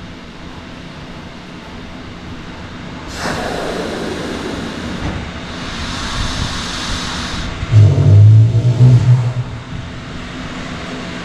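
Sleeping walrus breathing: a long hissing inhale through the nose from about three seconds in, then about a second and a half of loud, low hum-like sound near the eight-second mark, the loudest part of the clip.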